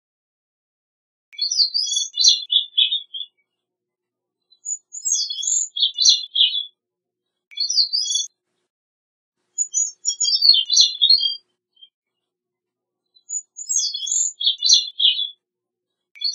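Gray-cheeked thrush singing: five separate song phrases of high notes, each a second or two long and dropping in pitch toward its end, with silent gaps between them.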